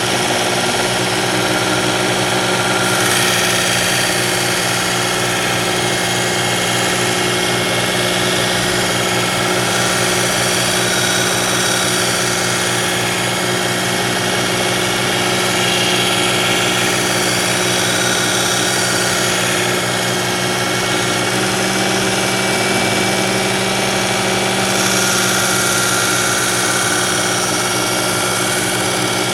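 Work Sharp Ken Onion Edition electric belt sharpener running steadily, a motor hum with the whir of the abrasive belt, as a kitchen knife blade is drawn across the belt in light passes.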